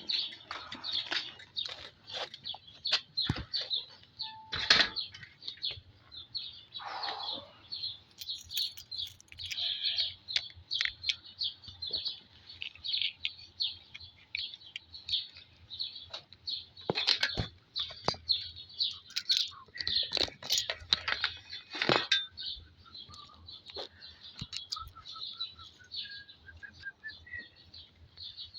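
Small birds chirping busily and without a break, broken by a few sharp clicks or knocks, the loudest about five seconds in. Near the end a short run of notes steps upward in pitch.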